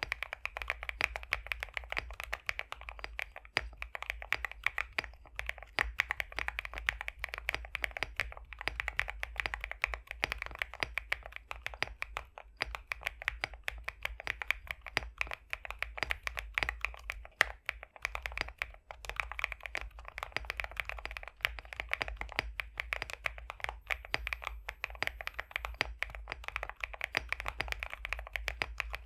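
Fast, continuous typing on a High65 v2 65% custom mechanical keyboard with pre-lubed BSUN X linear switches, giving a thocky, creamy clatter of keystrokes. The typing pauses briefly a couple of times.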